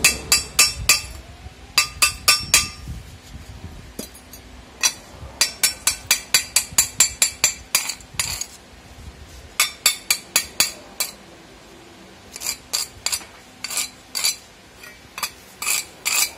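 Light metal-on-metal tapping: a hand tool striking thin metal pieces on a steel block, sharp clinks in quick runs of several strikes with short pauses between runs.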